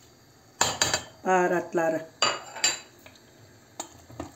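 Sharp clinks and knocks of kitchenware against a stainless steel cooking pot, a couple about half a second in and again around two seconds, then lighter taps near the end.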